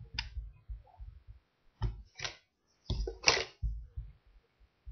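Handling noise right at the microphone as a plastic disco ball light is moved against it: a few sharp clicks and scrapes with irregular low thuds, the loudest a little after three seconds in.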